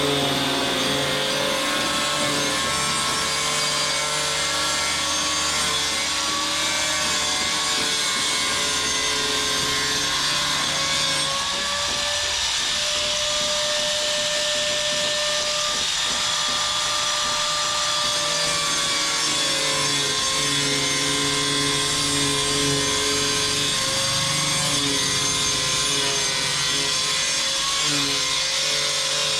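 A power tool running continuously, its pitch drifting slowly up and down as the load changes.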